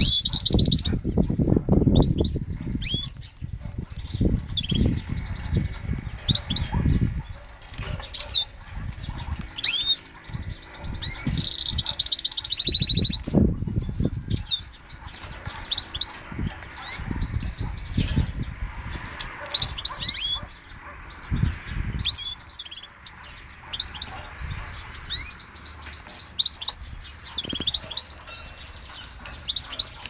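Goldfinch × canary hybrid (mule) singing: short, sharp high chirps and quick gliding notes in broken phrases, with a fast trill at the start and again about twelve seconds in. Loud low rumbles come and go beneath the song, mostly in the first two-thirds.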